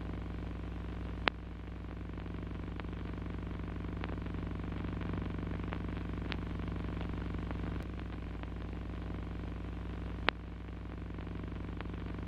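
Steady low hum with scattered clicks and crackle, the background noise of an old optical film soundtrack, with no music or voice. Two sharper pops, one about a second in and one near the end, each followed by a brief dip in level.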